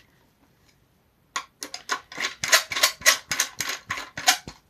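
Hand ratchet clicking rapidly as it runs cylinder head bolts down, with about five or six sharp clicks a second starting a little over a second in.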